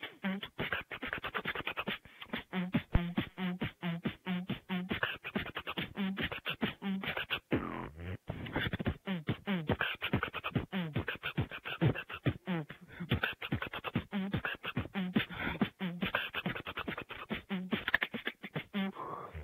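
Beatboxing heard over Xbox Live party voice chat: a fast, continuous run of percussive mouth sounds mixed with short hummed notes, thin and cut off at the top by the voice-chat line.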